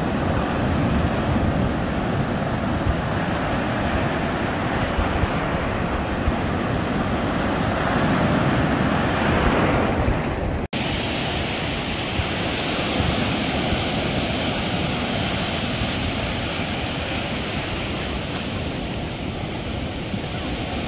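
Ocean surf breaking and washing over the shallows as a steady rush of white water. The sound drops out for an instant about halfway through.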